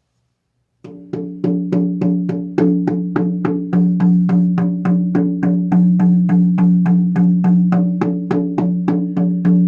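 10-inch harmonic shamanic horse drum, a horsehide frame drum, beaten in a steady beat of about three to four strokes a second, starting just under a second in. The head rings on with a sustained low tone between strokes, and the sound differs on different parts of the head.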